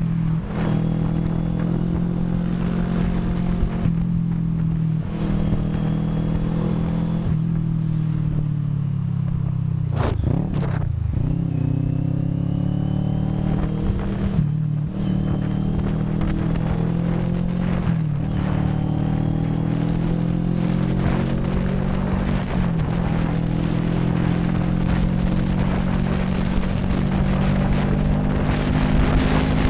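CFMoto NK400's parallel-twin engine running under way at steady road speed. Its note dips sharply and climbs back about ten seconds in, and otherwise drifts only gently in pitch.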